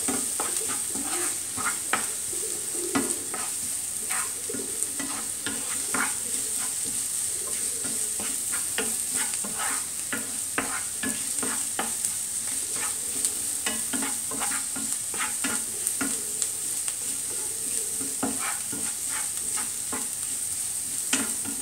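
Finely chopped onions frying in sunflower oil, sizzling steadily while being stirred, with frequent irregular clicks of the utensil against the pan. The onions are being sautéed until soft.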